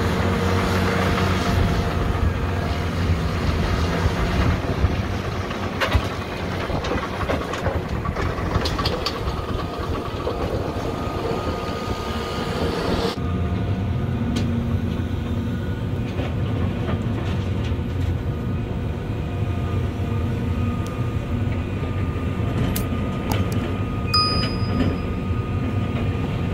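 Heavy diesel equipment running steadily: an excavator loading dirt and rocks into a rock truck's dump bed, with a few knocks as the load lands. About halfway through, the sound changes abruptly to the steady running of a Cat D6T dozer and a tracked excavator. Near the end come a few short electronic tones.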